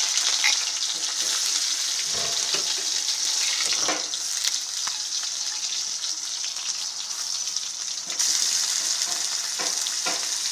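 Sliced onions sizzling in hot oil in a metal kadai, a steady high hiss that grows louder about eight seconds in. A few knocks, and a metal spatula stirring the onions near the end.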